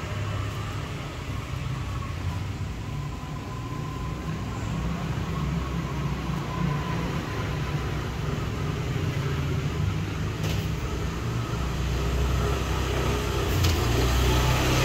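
A motor vehicle's engine running, a steady low rumble that grows louder near the end, with two faint clicks late on.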